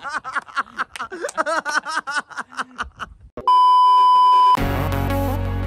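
A man laughing hard, a quick run of 'ha' pulses for about three seconds. Then a steady test-tone beep lasting about a second, played over colour bars, after which background music starts.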